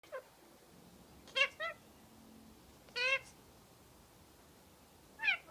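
White Indian ringneck parakeet giving a series of about five short, pitched calls, several falling in pitch, the clearest around the middle.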